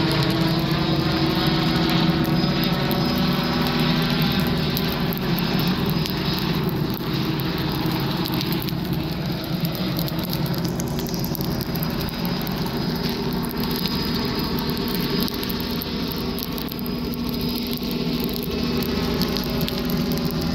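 Helicopter overhead, its rotor and turbine giving a steady drone whose pitch wavers slightly in the first few seconds.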